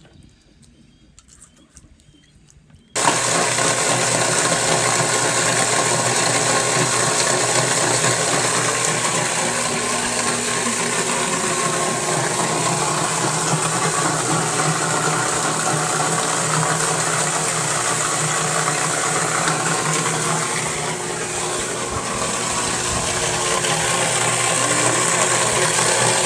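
Fish-cleaning station's water and machinery switching on suddenly about three seconds in, then running steadily: a loud rushing hiss with a steady mechanical hum underneath.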